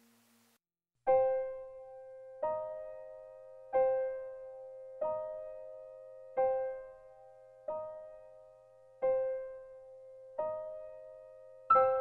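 Slow background piano music: single notes struck roughly every second and a half, each ringing and fading, starting about a second in after a brief gap. Quicker notes come in near the end.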